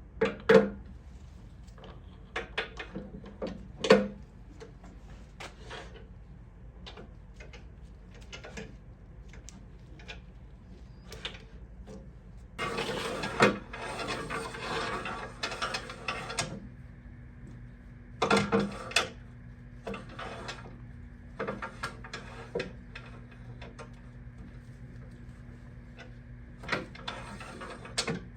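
Scattered knocks and clicks of tools and metal parts being handled in a workshop, the sharpest near the start and about four seconds in. About halfway through there are a few seconds of scraping or rubbing, over a faint steady hum.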